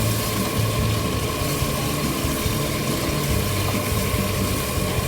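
Pork ribs sizzling as they fry and brown in a pot, a steady hiss, over background music with shifting low bass notes.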